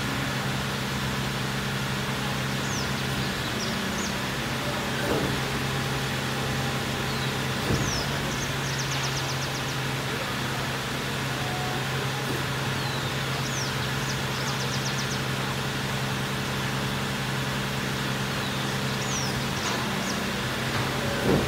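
Over a steady low hum and hiss, a green singing finch (yellow-fronted canary) sings short, faint, high phrases about four times: quick falling whistles, some running into a fast trill. A few soft knocks are heard.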